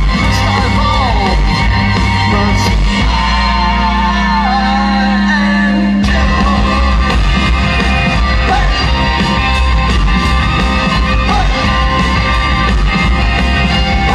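Live rock band playing loudly: electric guitar and a singing voice over heavy bass, the bass line changing about six seconds in.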